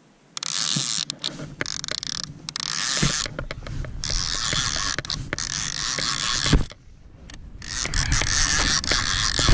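Fishing reel being cranked, its gears whirring and clicking as line is wound in against a fish, in two long spells with a break of about a second near the end.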